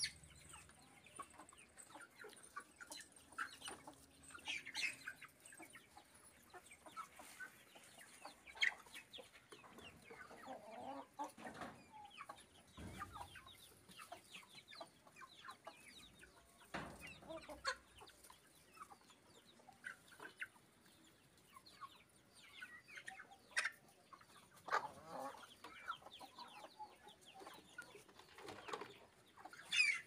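A flock of parrot-beak aseel chickens clucking softly, with many short, scattered calls throughout.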